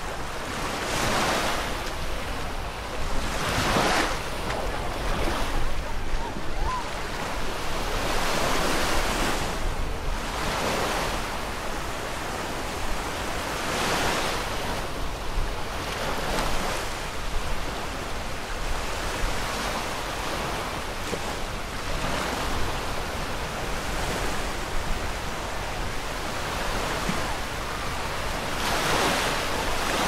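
Small ocean waves breaking and washing up a sandy shore, the surf swelling and fading every few seconds.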